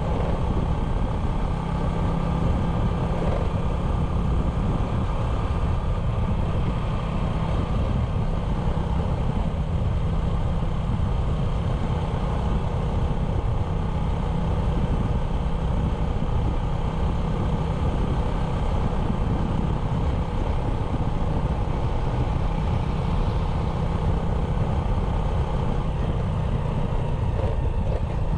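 Small 97cc single-cylinder motorbike engine running steadily at an even speed while being ridden.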